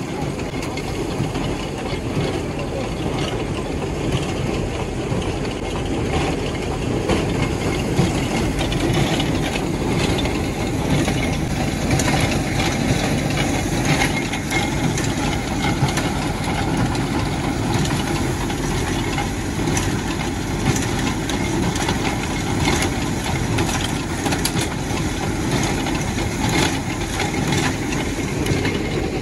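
Motor-driven machinery running steadily, a dense even noise with scattered light clicks.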